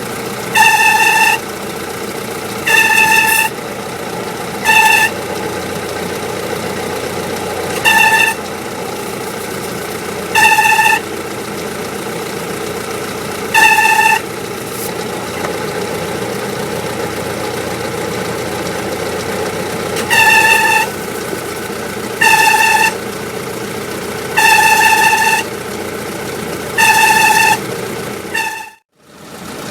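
Willys MB's four-cylinder Go Devil flathead engine idling while the clutch throwout bearing squeals in about ten short, loud, steady high-pitched bursts, each under a second, at irregular gaps. The squeal is the sign of a dry throwout bearing, which a few drops of oil quiets.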